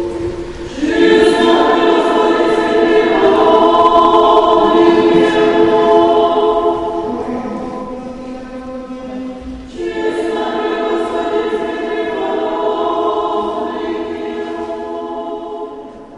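Church choir singing slow, held chords in two long phrases, the second entering about ten seconds in.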